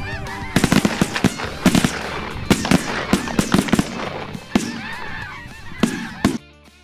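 Snow geese honking loudly as hunters' shotguns open fire, a rapid, ragged volley of well over a dozen shots starting about half a second in and thinning out, with the last blasts near the end before the sound drops away abruptly.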